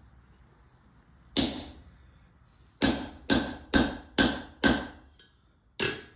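Hand hammer striking a 3/16-inch blacksmith's punch into hot mild steel to punch a hole, seven ringing metallic blows: one, a pause, five in quick succession about two a second, then one more near the end.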